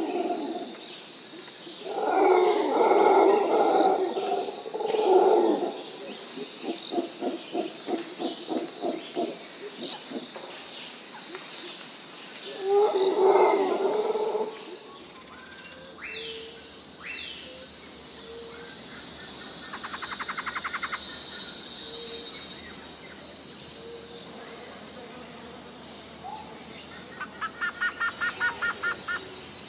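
Loud animal calls in a few bursts, with a rapid pulsed series in the middle. About halfway through, the sound changes to a steady outdoor background with small birds chirping and giving short rapid trills.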